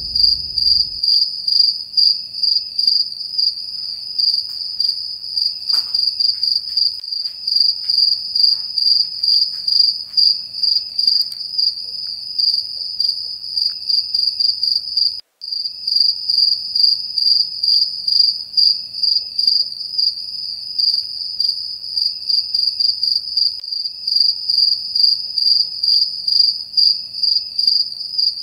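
Cricket chirping: a high, pulsing chirp repeated over and over without pause, cutting out briefly about fifteen seconds in.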